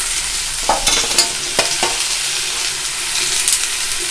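Chopped pumpkin leaves being added to a frying pan of hot oil, sizzling steadily, with a few light knocks and clicks about a second in.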